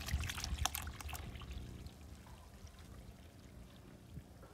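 Liquid poured from a plastic jerrycan into a plastic jug, louder for the first two seconds and then quieter.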